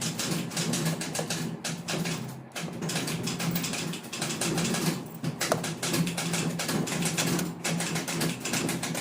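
Facit manual typewriter clicking and clattering as its keys and carriage mechanism are worked, with many irregular sharp clicks, over a steady low hum.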